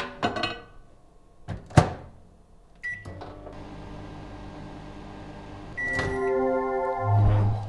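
Microwave oven in use: clicks as the load goes in, then the door shut with a sharp knock about two seconds in and a short button beep. The oven runs with a steady hum. Near the end the hum gives way to a held chord of steady tones and a strong low hum as the door is opened again.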